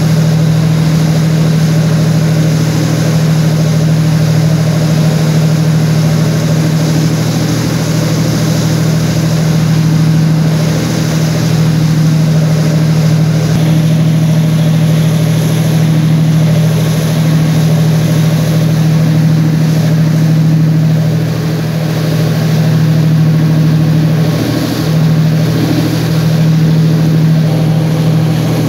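A boat engine running steadily, a constant low hum with a wash of noise over it.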